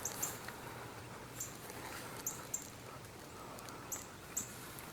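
Faint outdoor quiet broken by short, very high chirps of small birds, several coming in quick pairs.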